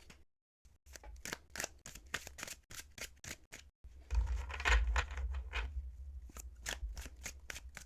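A thick deck of linen-cardstock tarot cards being shuffled by hand: a rapid run of card slaps and clicks, with a low bump of handling about four seconds in.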